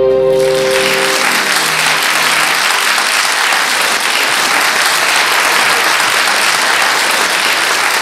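Audience applauding as a song ends, dense and steady; the song's last held keyboard chord dies away in the first second.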